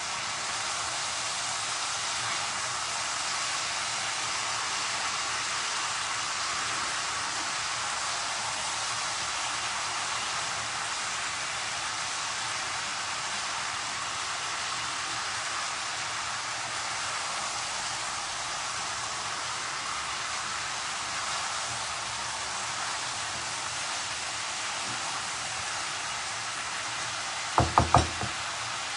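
A curry of potatoes and long beans sizzling steadily in hot oil in a pan, before any water is added. Three quick knocks come near the end.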